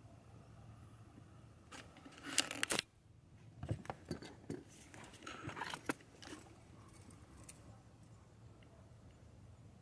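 Short rustling and scraping handling noises in two bursts, one about two seconds in and another from about three and a half to six seconds, over a low steady background hum.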